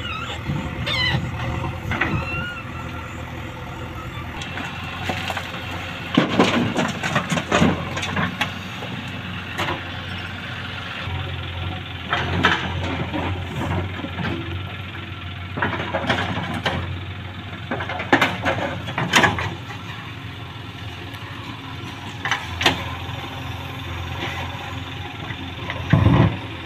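Diesel engines of a JCB 3DX backhoe loader and a Swaraj tractor running steadily. Every few seconds there are clusters of loud clanks and thuds as the backhoe bucket digs and drops earth and stones into the tractor's steel trolley.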